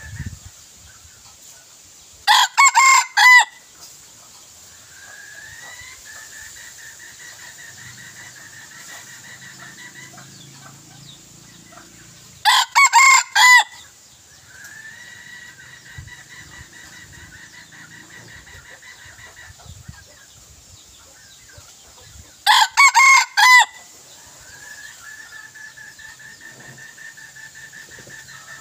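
Red junglefowl decoy rooster crowing three times, about ten seconds apart, each crow short and clipped at about a second long. A steady high drone fills the gaps between crows.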